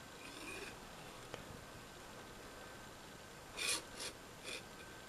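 Faint handling noise: a plastic circuit strip being slid across a microscope stage, with a small tick early on and a few short scraping rubs about three and a half to four and a half seconds in.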